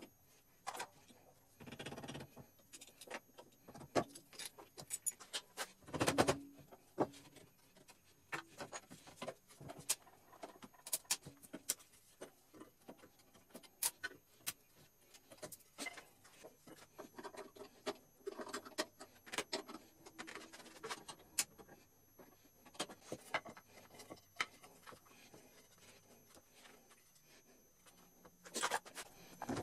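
Scattered clicks, taps and knocks of hand tools and wooden gate parts being handled on a workbench, with louder clatter about six seconds in and again near the end.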